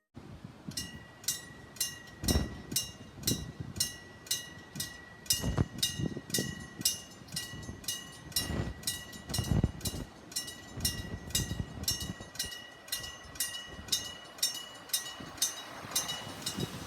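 Electric bell of a bell-type railway crossing signal ringing in fast, even strokes, about three a second, each with a ringing metallic tone. Under the bell, low rumbles and thumps come and go, fitting a train passing over the crossing.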